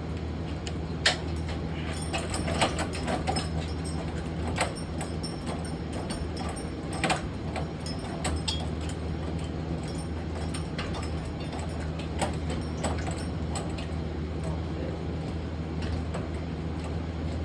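Scattered metallic clinks, rattles and knocks from items being handled and shifted, over a steady low hum.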